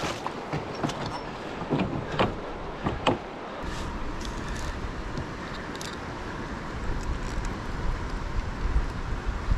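Water splashing and sharp knocks as a fish thrashes in a landing net alongside the boat, five or six hits in the first three seconds. After that, a steady low wind rumble on the microphone with a few faint metal clicks.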